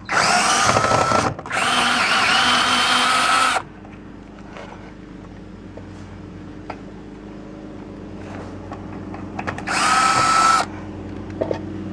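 Drill with a 3/8-inch bit backing out the screws that hold a garage door safety sensor: three runs of motor whine, two close together in the first few seconds and a shorter one near the end, with quiet gaps between.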